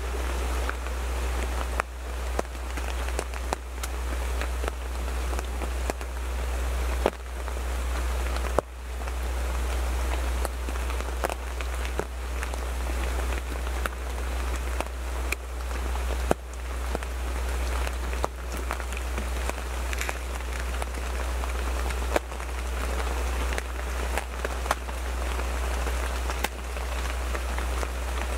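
Rain bouncing off a photo blind, heard from inside it: a steady patter of drops with frequent sharper single hits, over a steady low rumble.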